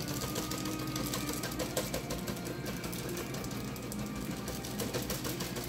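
Aquarium air pump humming steadily, with a continuous fizz of small clicks from an air-stone bubble curtain.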